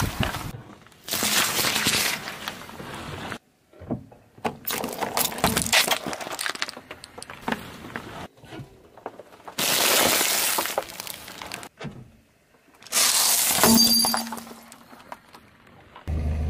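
A car tyre rolling over and crushing objects on asphalt: several separate bursts of cracking and crunching, each a second or two long with short quiet gaps between.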